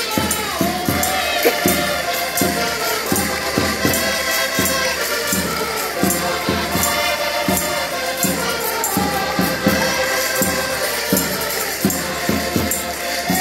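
Portuguese folk music played live: several diatonic button accordions playing a lively tune together, with voices singing along and jingling hand percussion keeping a steady beat.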